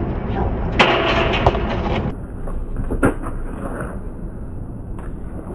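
A steady low rumble with a few sharp knocks, the loudest about three seconds in.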